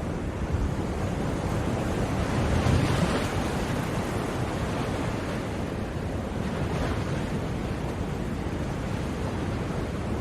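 Sea surf: a continuous wash of waves that swells louder about three seconds in and again at about seven seconds.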